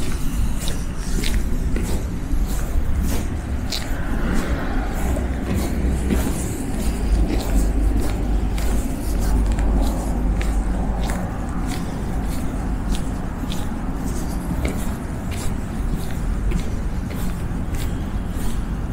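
Footsteps in snow at a walking pace, about two steps a second, over a steady low rumble of road traffic.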